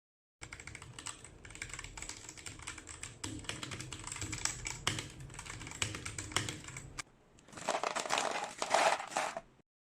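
Typing on a Royal Kludge RK84 mechanical keyboard fitted with lubed Gateron Milky Yellow linear switches: a steady patter of keystrokes. There is a brief pause about seven seconds in, then a louder, denser run of keystrokes that stops suddenly near the end.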